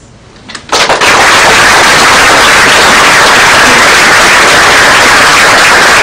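Loud audience applause, many hands clapping at once, starting abruptly just under a second in and holding steady.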